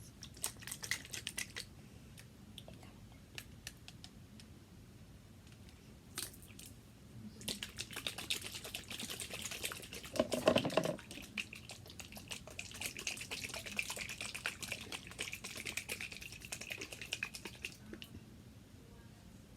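Capped plastic container of slime mixture being shaken to mix it: fast clicking and rattling in spells, densest through the middle and latter part, with one louder thump partway through.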